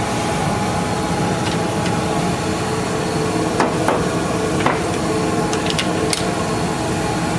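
Metal lathe running with a steady motor hum while a turning tool cuts 3/8-inch bar stock down toward a quarter-inch diameter for a bolt shank. A few sharp ticks come in the middle.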